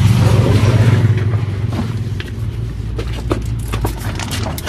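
Plastic wrapping on a mattress crinkling and rustling as it is carried and handled, with scattered short clicks in the second half. A steady low rumble runs underneath.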